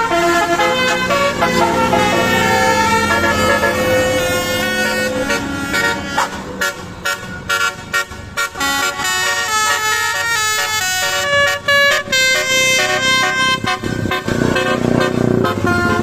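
Basuri musical bus horns playing melodies together, a duet of two horns: held notes at first, then a quick run of short stabbing notes, then held notes again near the end.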